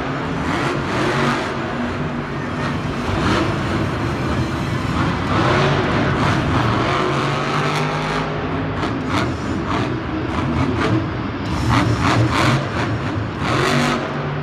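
A monster truck's supercharged V8 engine revving hard over and over as the truck drives across the arena's dirt floor, its pitch rising and falling.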